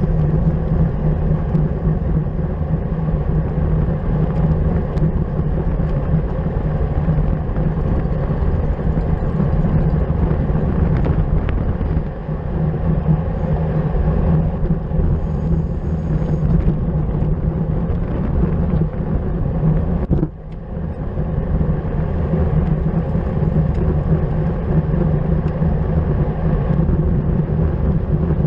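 Steady wind rumble on the microphone of a camera riding with a bicycle race at speed, with a brief lull about twenty seconds in.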